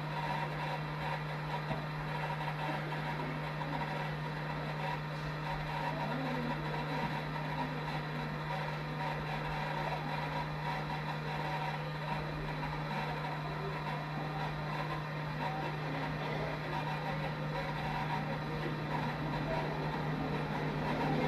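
Steady electrical hum with a low drone and an even hiss, unchanging throughout, like a running fan or bench equipment.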